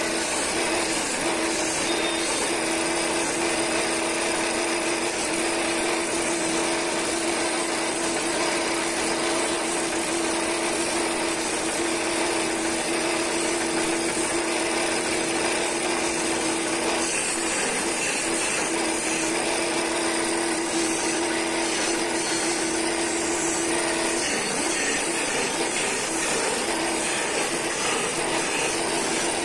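Wood lathe running with a steady hum while hand-held turning chisels cut into a spinning wooden spindle, adding a hiss of cutting.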